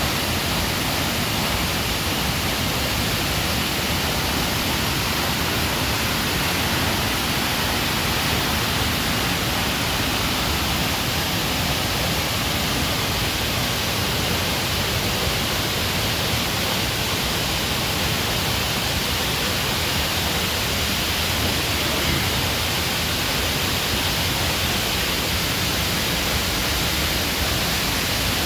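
Waterfall: water pouring onto large boulders, a steady, unbroken rush.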